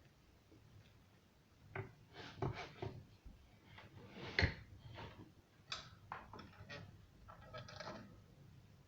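Irregular small clicks, taps and rubbing from hands handling an old radio set during repair, with a sharper knock about four and a half seconds in and a short rattle of taps near the end.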